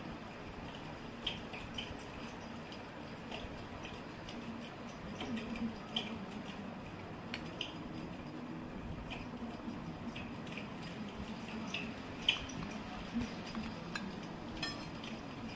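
Scattered light clicks and taps of a spoon and hands against a ceramic plate and bowl as sandwich filling is spread and bread is pressed down, over a steady low hum.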